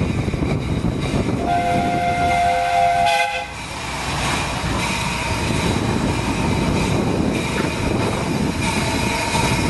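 Miniature steam locomotive's whistle blows once, a steady multi-tone note lasting about two seconds starting about a second and a half in, over the continuous rumble of the train running on the track.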